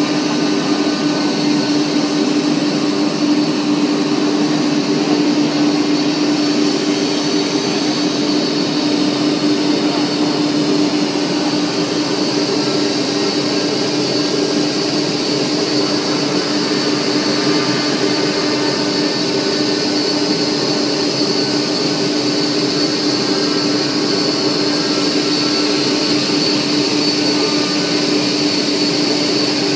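Semi-automatic panel saw running steadily, a constant low hum with a thin high whine over the noise of the spinning blade and machine.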